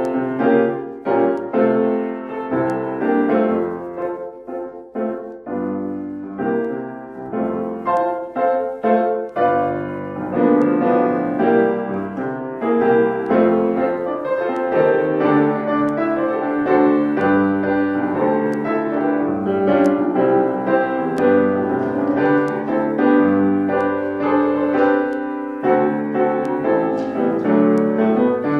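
Piano music: a slow, gentle piece of chords and melody, the notes struck and left to ring.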